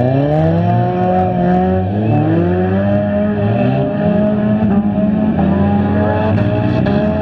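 Several stock front-wheel-drive cars' engines revving at once, their overlapping pitches rising and falling as the drivers accelerate and let off.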